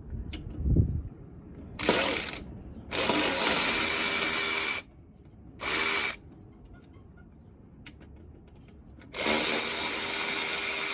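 Power drill running in four short bursts at a steady speed, the longest about two seconds, while a brush is being taken out of the planter's seed meter. A low thump comes about a second in.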